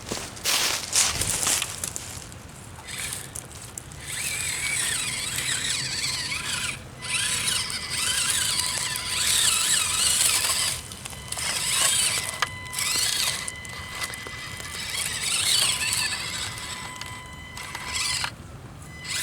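Axial SCX24 micro RC crawler's small electric motor and gear drivetrain whining as it is driven over rock, the pitch wavering with the throttle. The whine stops briefly three times, about 7, 12 and 18 seconds in, as the throttle is let off.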